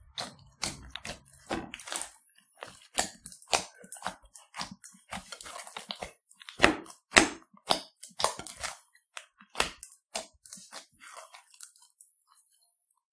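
Hands squeezing and kneading clear slime packed with foam beads and Play-Doh: a quick, irregular run of squelches and clicks. The loudest come about halfway through, and the sounds thin out and stop near the end.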